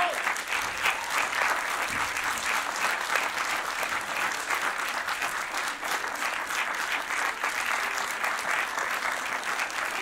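Audience applauding steadily: dense, even clapping from a full house at the end of a live performance.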